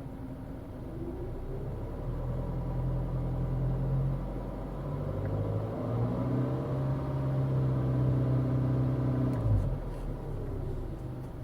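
2011 Hyundai Sonata's four-cylinder engine, heard from inside the cabin while driving, pulling with its pitch rising twice before dropping away abruptly near the end. It is an engine that failed after an oil pump replacement.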